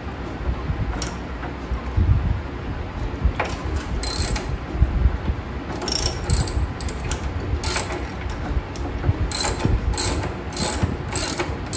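Hand ratchet wrench clicking as bolts are backed off, a few scattered clicks at first, then a steady run of about two clicks a second in the last few seconds.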